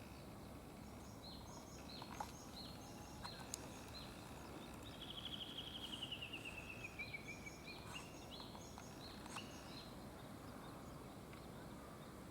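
Wild birds calling over steady outdoor background noise: many short, high chirps repeated throughout, and about five seconds in a rapid trill that falls in pitch over about two seconds.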